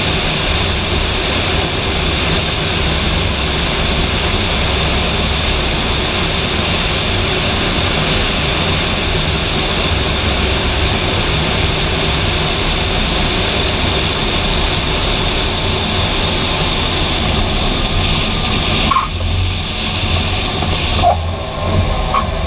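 Light single-engine propeller airplane's piston engine and propeller running at reduced power through final approach, touchdown and rollout, with wind rushing over the outside-mounted microphone. Near the end the rushing hiss drops away sharply as the plane slows on the runway, and a few short chirps are heard.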